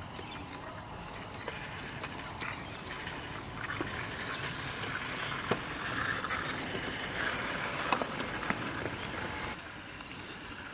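G scale model electric railcar running along garden railway track, its motor and wheels growing louder as it passes close by, with scattered sharp clicks from the wheels on the track. The sound drops suddenly near the end.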